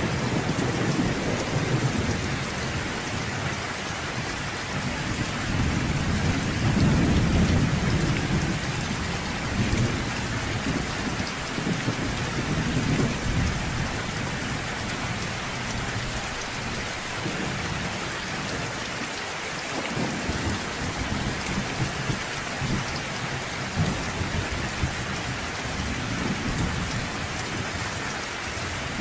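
Thunderstorm: rain falling steadily, with low thunder rumbling underneath that swells several times, loudest about six to eight seconds in.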